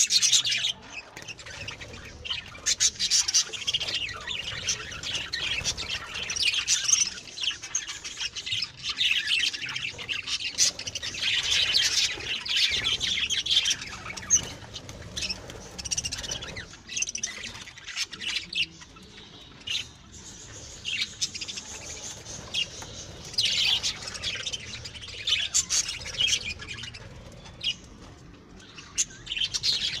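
A flock of budgerigars chattering: many overlapping high chirps, warbles and squawks, busiest in the first half, thinning out in the middle, then picking up again near the end.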